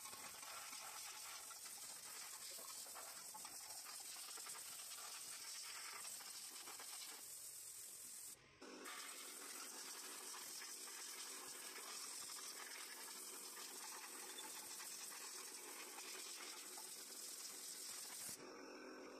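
Faint steady hiss of room tone or microphone noise, with no distinct sound events. It drops out briefly about eight seconds in and changes character near the end.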